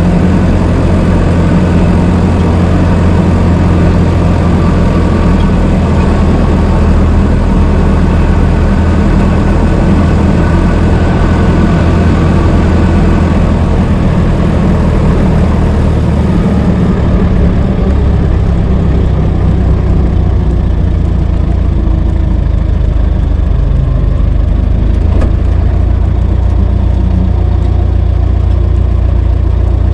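Old car's engine running steadily with a low, even hum. About halfway through, the higher, hissier part of the sound dies down a little while the low note carries on.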